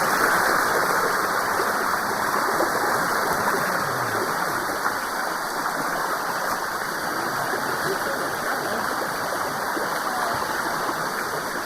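Water rushing steadily down the cascades of the Sticky Waterfall, an even wash of noise.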